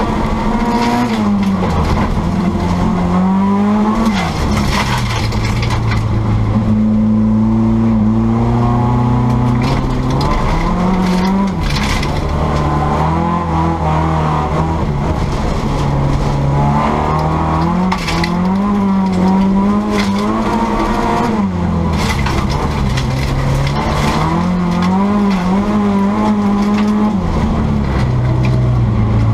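Volvo 240 folkrace car's engine at full race load, heard from inside the cabin, its revs repeatedly climbing and then dropping sharply through gear changes and lifts for corners. Tyre and loose-surface noise runs underneath, with a few sharp knocks.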